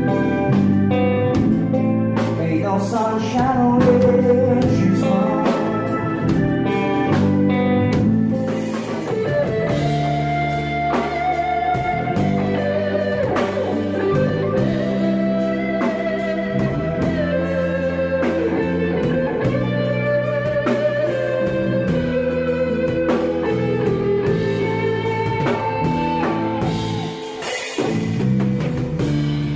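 Live band playing a slow blues-soul song: electric guitar, keyboard, bass guitar and drum kit, with long held, bending melody notes over the band.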